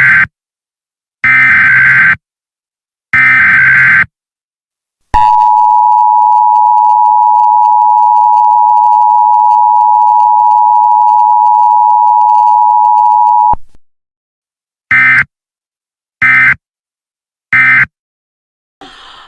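Emergency Alert System tones: three bursts of screechy digital SAME header data, then the two-tone attention signal, held steady for about eight seconds and cut off abruptly. Three shorter data bursts follow, the end-of-message code.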